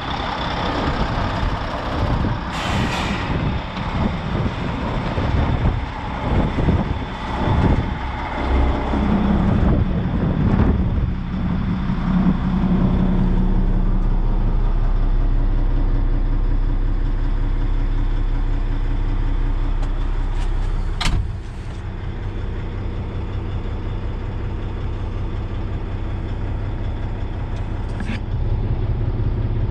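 The six-cylinder diesel engine of a Volvo A40D articulated haul truck idling steadily, heard first from outside and then from inside the cab. A sharp click comes about two-thirds of the way through, after which the engine sounds a little quieter, and a lighter click follows near the end.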